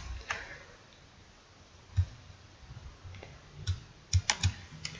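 Scattered keystrokes on a computer keyboard: single clicks with pauses between them, then a quicker run of four or five near the end.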